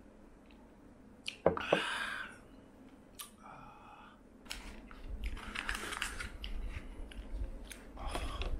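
Eating with chopsticks: scattered clicks of chopsticks against a dish as food is shovelled in and chewed. A glass is set down on the table with a sharp knock about a second and a half in.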